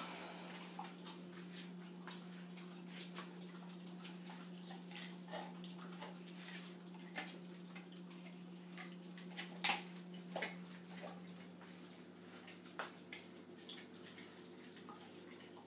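Dogs chewing and gnawing raw meat on the bone: faint, scattered wet clicks and smacks, with a sharper snap about ten seconds in, over a steady low hum that fades out about twelve seconds in.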